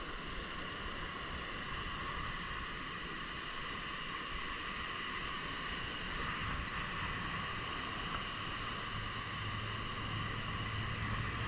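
Steady wind on the microphone mixed with the wash of surf breaking on a beach.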